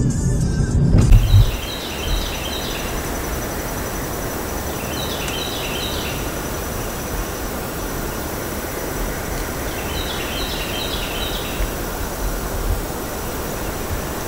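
For about the first second, a car running with music playing, cut off abruptly. Then a steady rushing hiss in the woods, with a bird calling three times, each a short run of quick, high, repeated notes.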